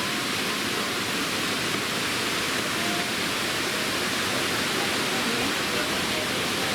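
Steady rushing roar of Fukuroda Falls, a large four-tiered waterfall, heard close by as a constant even hiss of falling water.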